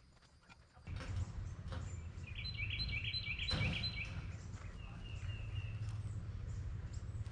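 Outdoor background with a steady low rumble that comes in suddenly about a second in. Over it a bird gives a quick run of about eight high chirps, then a shorter call a couple of seconds later. A single knock comes a little after the first run of chirps.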